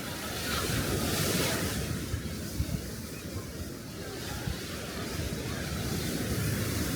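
Small sea waves breaking and washing up the beach, one wash swelling about a second in, with wind buffeting the microphone.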